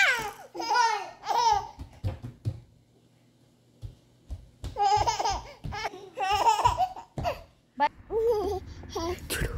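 Baby laughing and babbling in high, breathy bursts, with a gap of about two seconds before the laughter starts again. Near the end a low steady hum comes in under more baby sounds.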